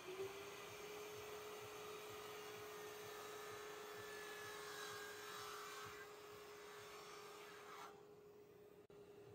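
Dust extractor hooked to a mitre saw, running with a steady hum and rushing air. The rushing cuts off about eight seconds in while the hum carries on.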